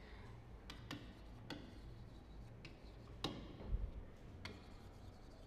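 Chalk on a chalkboard as words are written: a handful of faint, scattered taps and scrapes, the loudest a little over three seconds in, over a low steady room hum.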